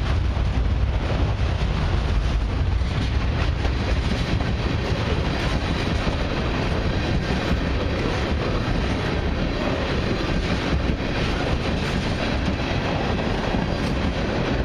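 A freight train's cars, autoracks and then tank cars, rolling past steadily: a continuous noise of steel wheels on rails, heaviest in the low end, holding an even level throughout.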